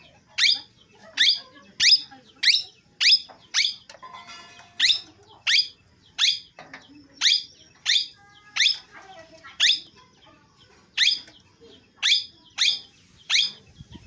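Green parakeet calling: a run of short, sharp, high chirps, each falling quickly in pitch, repeated about every half second with a few brief pauses.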